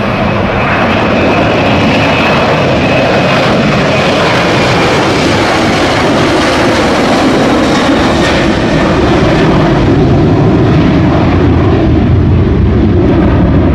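Boeing 737 jet engines at takeoff thrust through the takeoff roll and climb-out: a loud, steady noise, with a faint high whine over the first few seconds that slowly drops in pitch.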